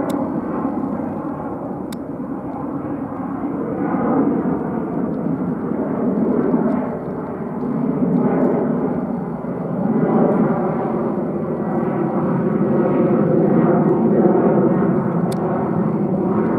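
Boeing 737-800 jet engines at climb power, heard from the ground as the airliner climbs away after takeoff: a continuous rumbling roar that swells and dips every few seconds.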